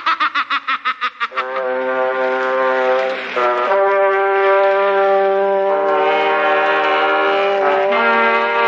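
Dramatic cartoon background score of sustained brass chords, the harmony shifting every two seconds or so. It is preceded by about a second of rapid pulsing, roughly nine pulses a second.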